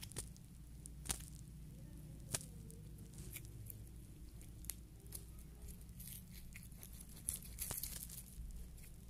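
Slime squished and pulled apart between fingers: faint scattered clicks and pops, with a crackly stretch near the end, over a steady low hum.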